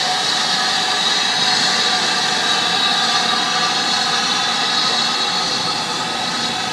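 BR Standard class 4MT 2-6-4 tank steam locomotive pulling away with its train: a steady, loud rush of escaping steam with several steady tones through it, no separate exhaust beats.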